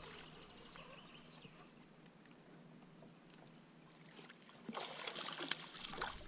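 Water splashing and lapping against a small boat, faint at first, then louder and more broken with sharp splashes from about three-quarters of the way through.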